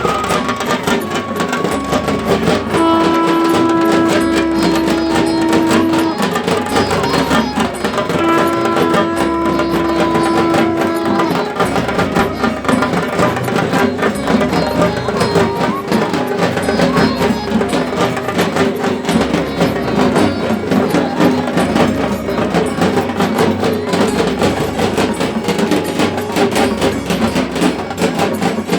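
Music with fast, steady percussion, with two long held notes about three and eight seconds in.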